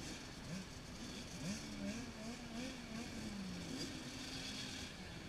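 Distant motocross dirt bikes revving on the track, their engine pitch rising and falling several times.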